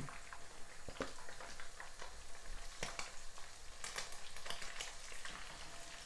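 Hot oil sizzling in a frying pan around a whole fried parrot fish, a steady hiss with scattered sharp pops and crackles.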